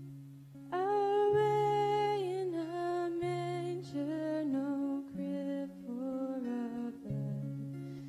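A young woman sings a slow melody into a microphone, coming in about a second in on a long held note, over acoustic guitar accompaniment.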